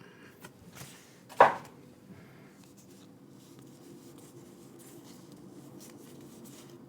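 Quiet handling of trading cards at a desk: one sharp knock about a second and a half in, then faint clicks and light rustling over a steady low hum.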